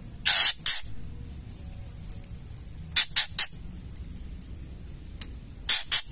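Female white-rumped shama giving its harsh rattling 'ketrekan' call: short rasping bursts in three groups, two about half a second in, three around the three-second mark and two near the end.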